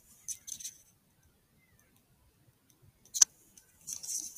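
Short hissy rustles of handling noise on a digital night-vision rifle scope's built-in microphone, with one sharp click about three seconds in as the scope's magnification is switched from 8x to 4x.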